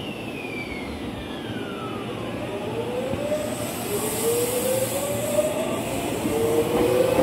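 Tokyu 9000 series electric train pulling away from a station, its VVVF inverter whining: one tone falls over the first couple of seconds, then several tones rise together as it speeds up. Wheel and rail noise builds and the train grows louder as it passes.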